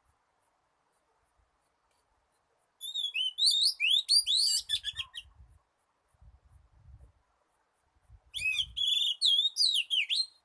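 Oriental magpie-robin singing: two phrases of rich, varied whistled notes sliding up and down, the first about three seconds in and the second near the end, with a pause between. It is the wild-type song used as a decoy to lure the species.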